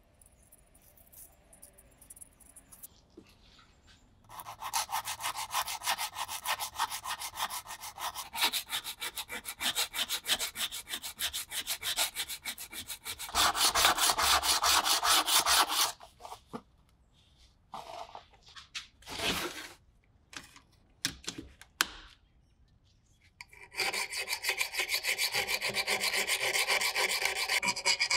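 Rapid back-and-forth scraping of a wooden stick over the stamped steel handle of a hoof knife, coming in runs with short gaps. Near the end, a round file rasps quickly against the hooked tip of the knife blade.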